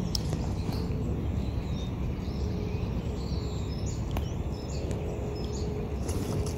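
Outdoor ambience: a steady low rumble, with scattered brief chirps and calls of small birds.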